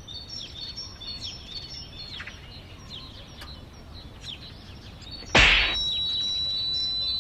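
Birds chirp in the background. About five seconds in comes one sharp slap, followed by a steady high-pitched tone that holds for about two seconds.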